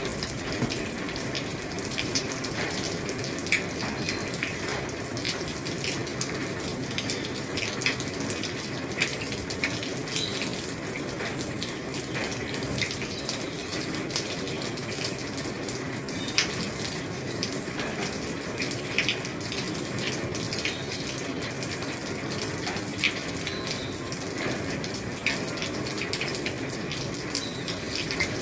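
Heavy rain falling steadily on an old roof: an even hiss with many scattered sharp drop ticks.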